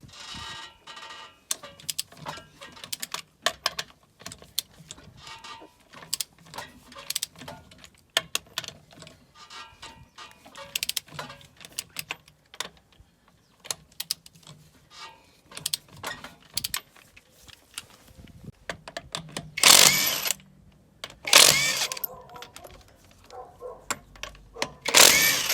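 Metal tools and parts clinking and knocking during work on a car's front suspension, with many small irregular clicks. Three loud, harsh bursts of about half a second come near the end.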